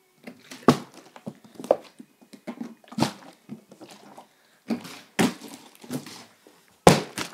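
A partly filled plastic water bottle being flipped and handled, with a series of separate knocks and thuds as it lands and is grabbed again, about seven in all; the loudest comes near the end.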